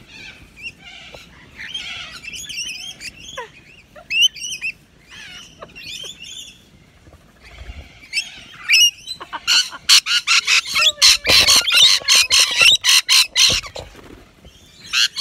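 A flock of rainbow lorikeets chattering with high, wavy calls while feeding on apple, breaking out about halfway through into a rapid run of loud, harsh screeches that lasts several seconds and then eases off.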